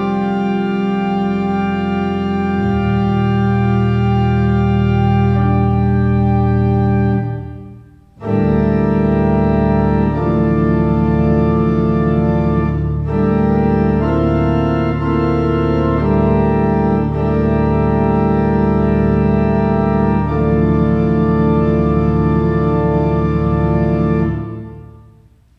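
Pipe organ playing slow, sustained chords over a held pedal bass in a solemn funeral piece, with a short break about a third of the way in. The final chord releases near the end, closing the piece.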